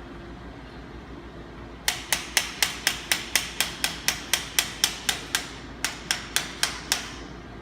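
Hammer tapping rapidly on the brake handle assembly of a drywall flat box handle, knocking it loose. It is about twenty sharp knocks at roughly four a second, starting about two seconds in, with a brief pause near the middle.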